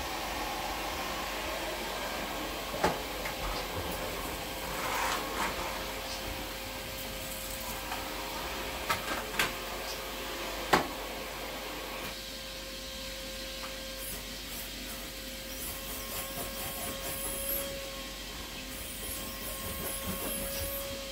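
Vacmaster 2.5-gallon, 2-peak-horsepower shop vacuum running steadily with a constant whine, its sound changing about halfway through. A few sharp knocks come about 3 s in and again around 9 to 11 s in.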